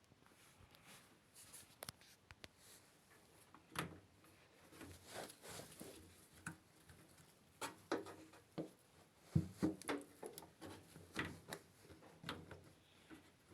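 Scattered clicks, light knocks and rubbing, as of parts and tools being handled, busier in the second half.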